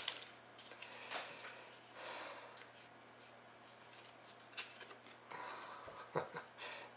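Faint sliding and rubbing of trading cards being handled and flipped through, with a few light clicks and soft swishes of card stock.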